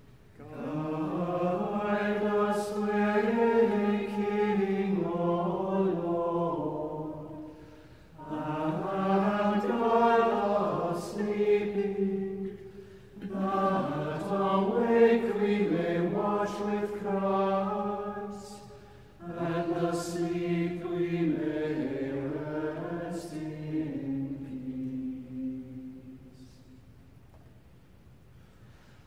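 A cappella church choir singing in four long phrases with short breaths between them, the last phrase fading out a couple of seconds before the end.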